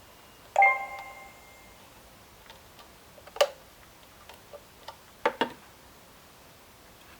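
A sharp clink that rings on briefly for about a second, then scattered light clicks, with a louder click a few seconds in and two quick clicks in succession about five seconds in: hard objects being handled.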